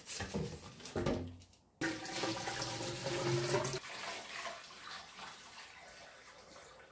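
Water-based de-rusting solution sloshing and pouring as parts are set into it, loudest in the first few seconds and then trailing off to a faint trickle.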